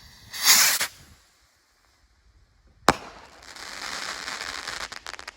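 Mortal Rocket consumer firework rocket launching with a brief loud whoosh. About two seconds later comes one sharp bang as it bursts, followed by about two seconds of crackling.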